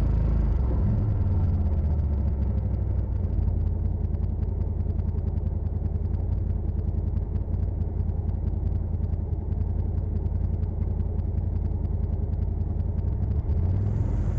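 Side-by-side (UTV) engine running steadily under way on a trail, a low drone that shifts slightly in pitch near the end.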